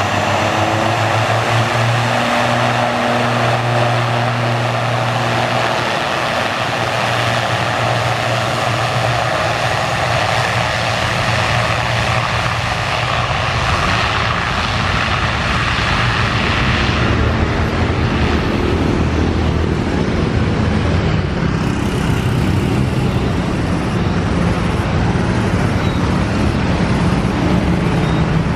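An ATR 72-600 turboprop airliner's two propeller engines run with a steady drone and hiss as it rolls along the runway. About two-thirds of the way through, the hiss fades and the low drone changes pitch as the aircraft heads away down the runway for take-off.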